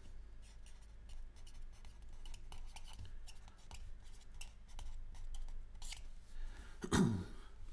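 Felt-tip marker writing on a white board: a run of quick scratchy strokes and squeaks as words are written out, then underlined. A short voiced sound comes about seven seconds in, over a steady low electrical hum.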